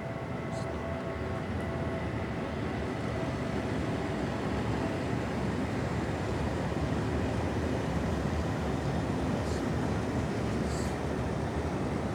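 Freight train of open wagons rolling past: a steady rumble of wheels on rails that grows a little louder, with a few faint high ticks.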